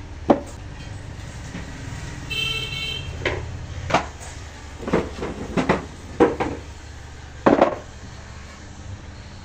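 Irregular wooden knocks and taps as a painted wooden sewing-machine base box is turned over and set down on the floor, about seven in all, the loudest near the start and near the end. A brief horn toot sounds about two and a half seconds in, over a steady low rumble.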